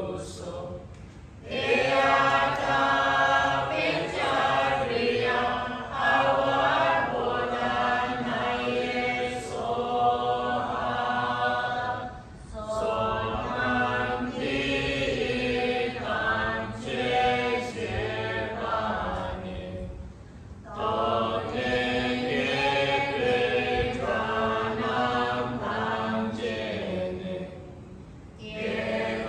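A group of devotees chanting Tibetan Buddhist prayers together in unison, in long phrases with short breaks for breath between them.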